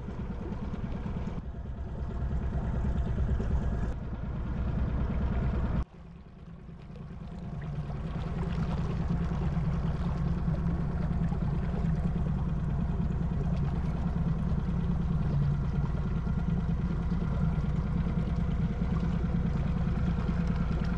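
Boat engine running steadily at low trolling speed, a constant low hum. It drops out abruptly about six seconds in and fades back up.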